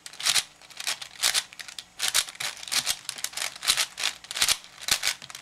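Layers of a 5x5 puzzle cube being turned quickly by hand: a rapid run of plastic clicks and rattles, several a second, as a move sequence is executed.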